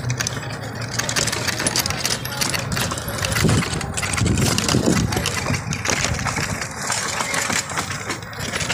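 Street noise from riding along a rough, broken lane: a steady vehicle din with many small rattles and clatters, and a few louder rumbles around the middle.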